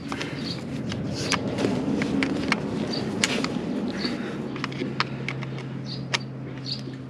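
Engineer pliers clicking and scraping against a rounded-off, stripped oil drain bolt as they are worked to grip and turn it; the bolt is stuck fast. A low steady hum comes in about halfway.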